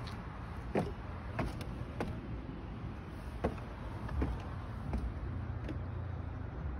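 Footsteps climbing weathered wooden stairs onto a wooden deck: a series of short knocks, about one every two-thirds of a second, over a steady low rumble.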